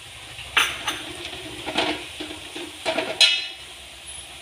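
A spoon stirring coriander powder into browned shallots frying in a pan, with a light sizzle and a handful of sharp scrapes against the pan, the loudest a little after three seconds in.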